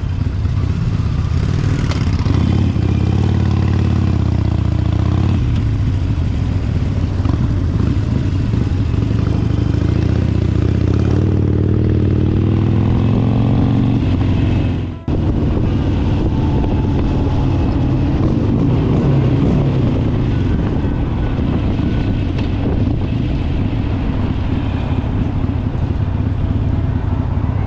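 Harley-Davidson Sportster XL1200X's V-twin engine running at road speed, heard from the rider's seat with wind noise on the microphone. The engine revs up twice as the bike accelerates, and the sound breaks off for a moment about halfway through.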